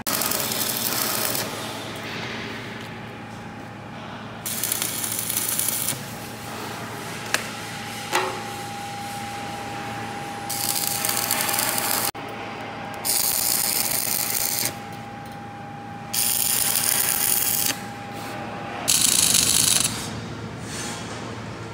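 Arc welding on steel pipe: a crackling hiss that comes in separate bursts of one to two seconds, about six times, as the welder strikes and breaks the arc.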